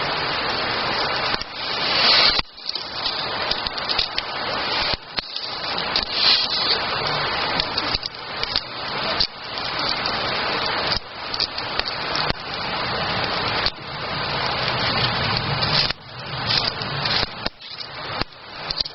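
Campfire burning: a continuous rushing hiss of flames that swells and falls, with frequent sudden dips and faint crackling.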